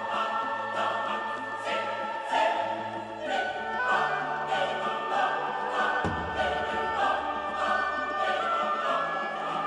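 Background music: a choir singing held notes over sustained low bass tones, with light accents recurring about every second.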